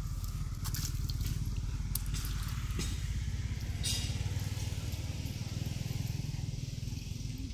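Steady low rumble of a small engine running at idle, with a few faint short clicks over it.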